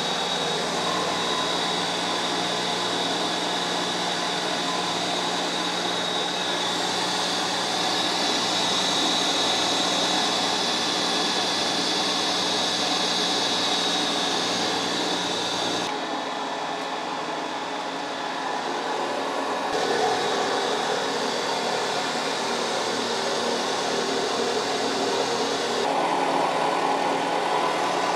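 DoALL milling machine running as a carbide end mill cuts along the top of a T-slot in a cast iron drill press table, a steady machining noise with a thin high whine through the first half. The sound shifts about halfway through and again near the end.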